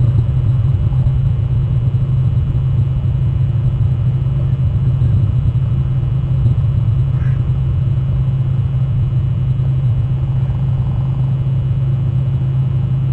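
Steady, loud low rumble from an outdoor webcam's microphone, with one faint, brief high call about seven seconds in.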